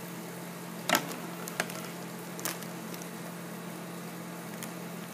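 A steady low hum of room noise, broken by a few light clicks and rustles from handling toys and bags, the loudest about a second in.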